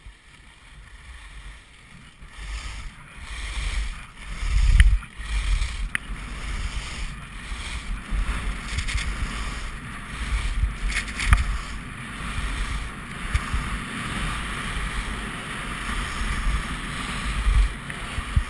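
Skis hissing and scraping over groomed snow in a fast descent, the hiss swelling and dipping with each turn, while wind rumbles on the microphone.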